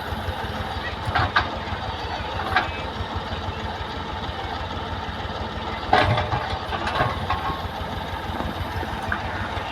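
Heavy-machinery diesel engine idling with a steady low rumble, with a few short sharp sounds over it, the loudest about six seconds in.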